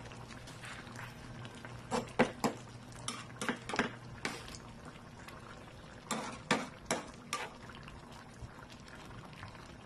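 A metal ladle stirs a simmering tomato-based beef stew in a metal pan, clinking against the pan in three quick clusters of knocks, about two, four and seven seconds in. The sauce bubbles softly underneath.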